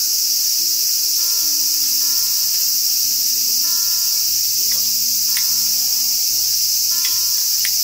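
A steady, high-pitched chorus of evening insects trilling without a break, under soft instrumental background music that moves slowly from note to note.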